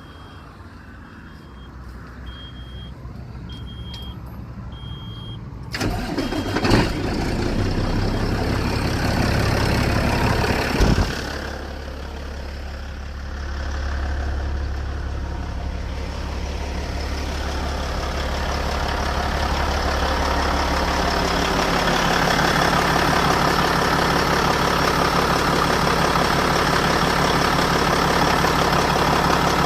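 Kenworth T800's Cat C15 inline-six diesel cranking and catching about six seconds in, then running at a steady idle. Before the start, a cab warning buzzer beeps several times.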